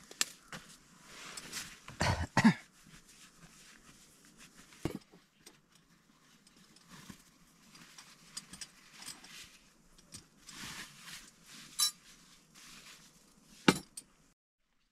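Camp cookware being handled: a small camping stove and pot are set down with a few sharp knocks and clinks, the loudest a pair about two seconds in and another near the end, with rustling in between. The sound cuts off abruptly just before the end.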